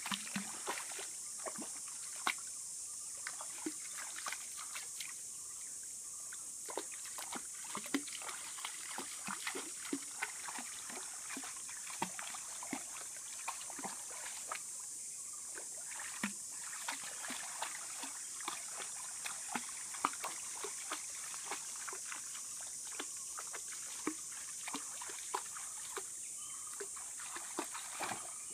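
A German shepherd wading through a shallow rocky stream, its legs making many small, irregular splashes and sloshes in the water. A steady, high-pitched insect drone runs underneath.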